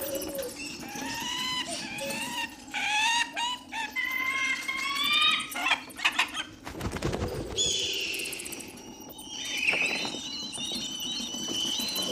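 Birds chirping in runs of short rising and falling calls. A brief noisy flurry comes about seven seconds in, then higher warbling calls.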